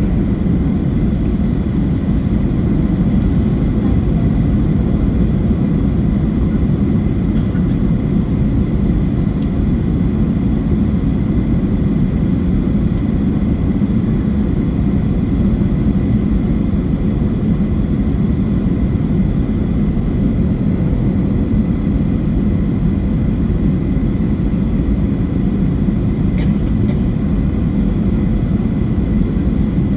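Steady cabin noise of a Boeing 737-800 in flight: a constant low rumble of engines and airflow, with a faint steady whine. There is a faint brief tick near the end.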